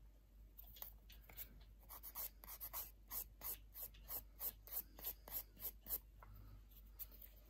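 Quick, faint, scratchy rubbing strokes of a nail-prep tool across a fingernail, about three a second, starting about two seconds in and stopping about six seconds in.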